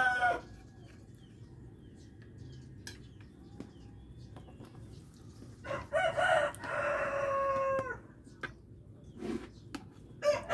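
A rooster crowing: one long crow of about two seconds midway, held on a steady pitch and dropping at the end, with the tail of an earlier crow at the very start. A few light clicks come between the crows.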